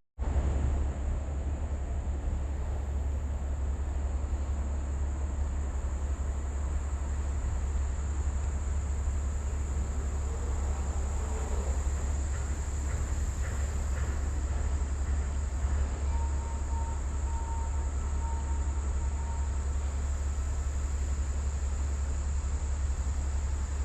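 Steady high-pitched drone of insects over a steady low rumble.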